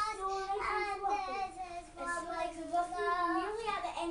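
A young girl singing to herself, holding long, slightly wavering notes.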